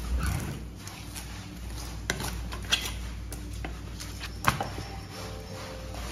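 Sea bream being filleted with a knife on a cutting board: soft cutting and handling sounds, broken by a few sharp knocks and taps as the fish and fillet are moved and set down. The loudest knock comes about four and a half seconds in. A steady low hum runs underneath, and background music comes in faintly near the end.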